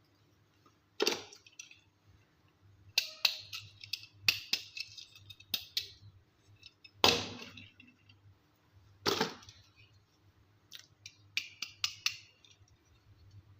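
Small plastic toys and their packaging being handled: a string of sharp clicks and taps with short rustles between them, the loudest about seven and nine seconds in.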